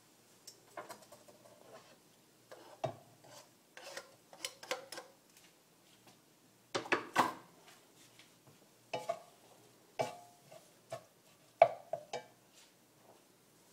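Kitchen utensils knocking and scraping against a skillet and other cookware in an irregular run of clatters, a few leaving a brief metallic ring; the loudest knock comes near the end.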